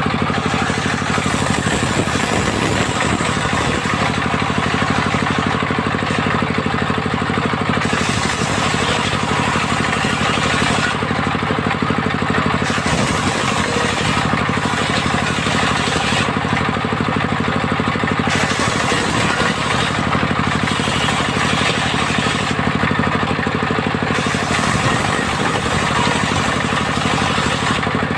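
Engine of a mobile circular sawmill running steadily, with a higher hiss that comes and goes every few seconds.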